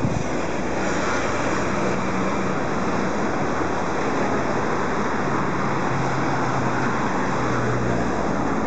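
Steady road traffic noise, an even roar with a faint low engine hum in it.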